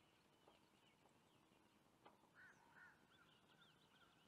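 Near silence with faint, distant bird calls: two short arched notes a little over two seconds in and fainter chirping around them.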